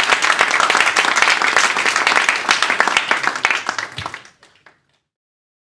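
Small audience applauding; the clapping thins out and dies away about four seconds in.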